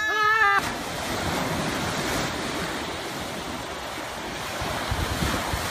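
Ocean surf washing up the shore around a log: an even rushing noise, with wind on the microphone. It opens with a short held voice that breaks off about half a second in.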